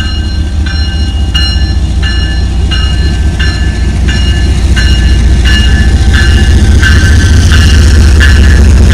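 CSX diesel freight locomotives passing close by, a deep engine rumble that grows louder as they draw level. A bell rings steadily over it, about one strike every 0.7 s.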